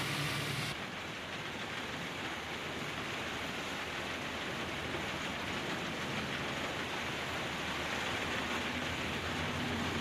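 Heavy truck engine sound for the first moment, then a steady, even hiss with no distinct events.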